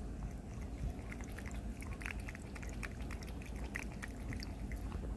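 Cat drinking from a stainless-steel pet water fountain bowl, its tongue lapping the water in a quick run of small wet clicks, about three or four a second.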